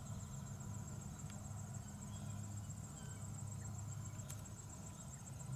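Steady, high-pitched trilling of an insect chorus, with a faint low rumble underneath.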